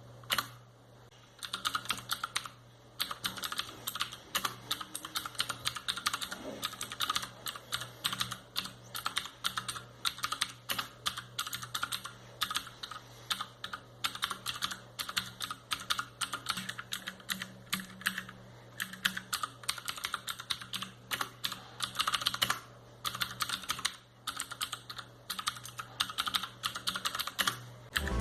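Typing on a HyperX Alloy FPS Pro mechanical keyboard with clicky Cherry MX Blue switches: rapid, continuous keystroke clicks with a few brief pauses.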